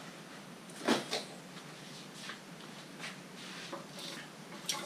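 A stripped-down truck wiring harness being gathered up and lifted off a workbench: scattered clicks and knocks of its plastic connectors and wires against the table, the sharpest about a second in and another near the end.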